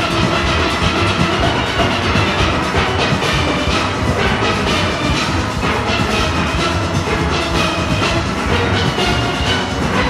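Large steel orchestra playing: many steelpans, from high tenor pans to the big bass pans, struck together over percussion.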